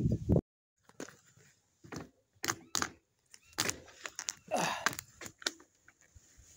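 Scattered clicks, knocks and light rattles of a phone held in the hand while riding a bicycle along a rough lane, with a brief rustle a little before the end.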